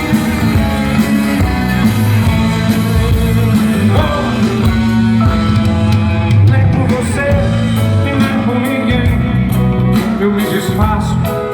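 Live band playing an instrumental passage of a rock-tinged Brazilian pop song: guitar and bass over drums, with no sung words.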